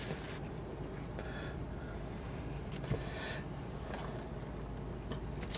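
Quiet room tone: a steady low electrical hum, with a faint tick about three seconds in.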